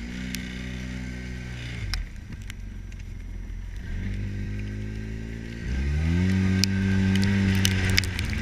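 Side-by-side UTV engine running as it drives through snow. Its pitch drops off the throttle about two seconds in, then climbs again at around four seconds and louder at around six seconds. Scattered sharp clicks sit on top, more of them near the end.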